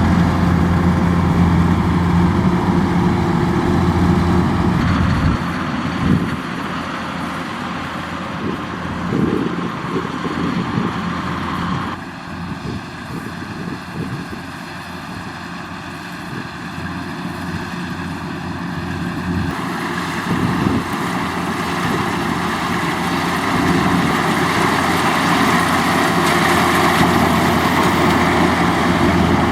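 Kubota DC-105X rice combine harvester's diesel engine and threshing machinery running steadily. The sound shifts abruptly a few times.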